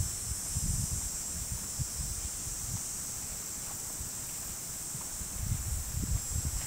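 Wind buffeting the microphone in gusts, with a steady high-pitched hiss under it. The gusts are strongest near the start and again near the end.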